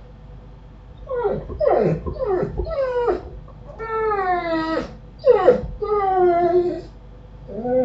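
A household animal making a series of about six whining calls, most sliding down in pitch, the longest lasting about a second.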